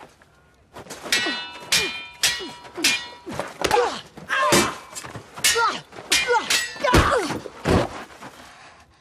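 Steel swords clashing in a fast exchange: a rapid series of ringing clangs, about two a second, then two heavy thuds near the end.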